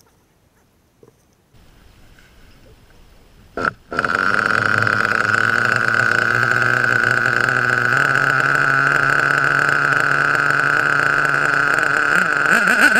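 Nitro RC buggy's glow-fuel engine catching about four seconds in after a brief sputter, then idling steadily with a loud, high buzzing note. Near the end the note starts to waver up and down.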